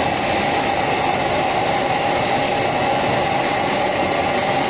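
Vacuum suction machine running steadily, drawing through a hose fitted to a car's coolant tank filler: an even rushing noise with a steady whine.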